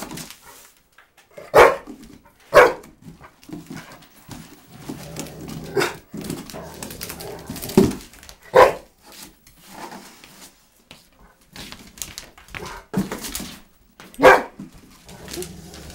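A Rottweiler barking in short, single barks, about seven at irregular gaps. Between the barks there is quieter rustling and scraping of the cardboard box it is pawing at.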